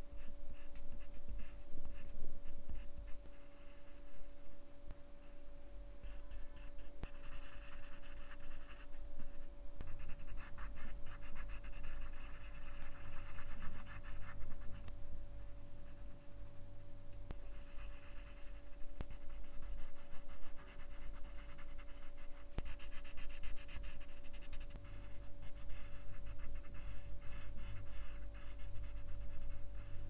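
Colored pencils scratching on paper in quick back-and-forth shading and sketching strokes, coming in bursts of a few seconds with short pauses between.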